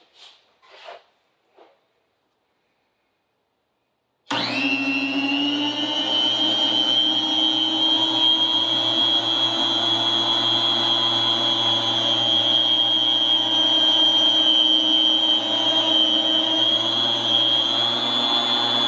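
Cabela's 7.5-inch heavy-duty electric food slicer switched on about four seconds in. Its motor spins up and then runs steadily and moderately loud, a high whine over a lower hum, as roast turkey breast is pushed on the sled through the spinning blade.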